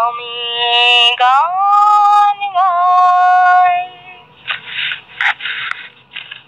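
A woman singing alone, drawing out a few long held notes that slide and waver in pitch, fading out about four seconds in. Then come rustling and a few sharp clicks.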